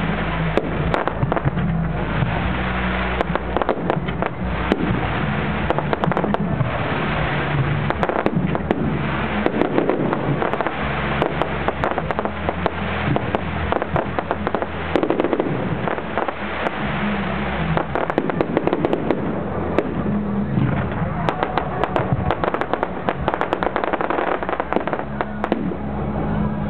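Fireworks display: a dense, continuous run of bangs and crackling as shells and stars burst, with music and a deep bass line playing underneath.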